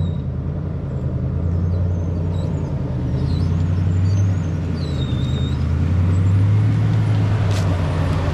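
Toyota LandCruiser 100 Series four-wheel drive on the move: a steady low engine drone with road noise.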